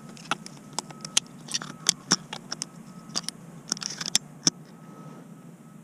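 Handling noise close to the microphone: irregular small clicks and rustles of hands and clothing on a shotgun, the last sharp click about four and a half seconds in, over a faint steady hum.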